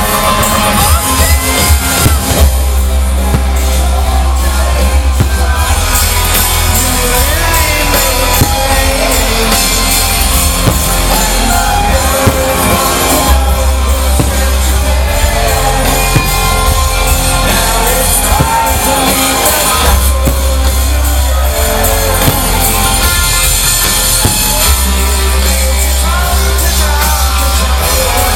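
A live rock band playing loud, with a singer and heavy bass, heard from within the crowd, with shouts from the audience.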